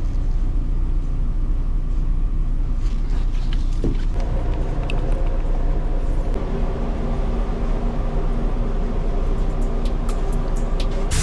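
A steady low mechanical rumble of running shop machinery, with a few light clicks near the end.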